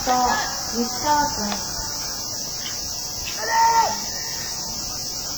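Baseball players calling out to each other across the field, in short shouts at the start and again about three and a half seconds in. Under the shouts runs a steady high-pitched drone of insects.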